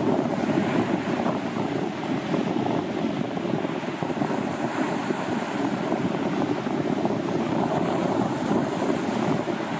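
Sea surf: waves breaking and washing up a sandy beach in a steady rush.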